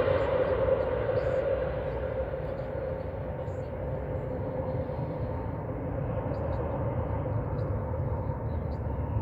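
Airbus A320's twin jet engines on final approach: a droning hum with a steady tone that fades over the first few seconds as the airliner moves away, leaving a low rumble.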